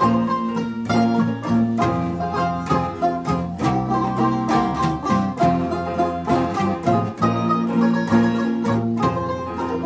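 Small rondalla-style string band playing a tune together: a banjo picking the melody over strummed acoustic guitars and a large acoustic bass guitar.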